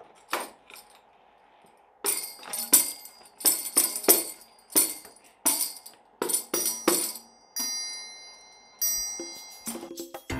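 Tambourine struck in a steady beat of about two hits a second, its metal jingles rattling with each hit. Near the end a triangle is struck and left ringing, twice.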